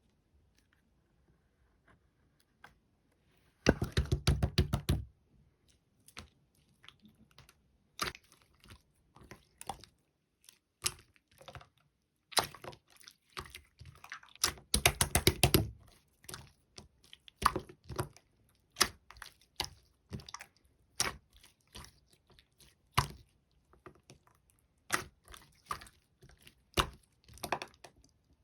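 Clear slime being squeezed and pressed by hand, making wet clicks and pops. Two quick dense runs of clicking stand out, with scattered single pops between and after them.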